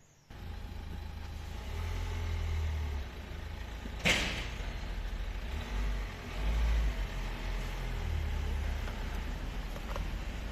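Feolaviy battery-powered portable air compressor switching on about a third of a second in and running steadily with a low hum. There is one short, sharp burst about four seconds in.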